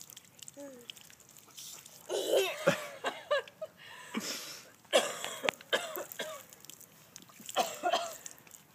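A toddler's short vocal sounds: babbling grunts and squeals in several brief bursts, the loudest about two seconds in, about five seconds in and near the end.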